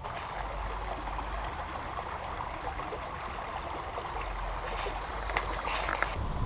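A creek's water running steadily, a constant rushing trickle, with a few sharp clicks near the end.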